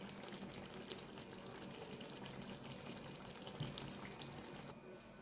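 Mutton curry simmering in a cast-iron kadai: a faint, steady bubbling and crackling of the thick gravy, with many small pops. It cuts off near the end.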